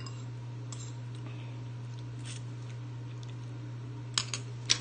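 Faint eating sounds over a steady low hum, with a few sharp clicks near the end, such as chopsticks tapping a ceramic bowl.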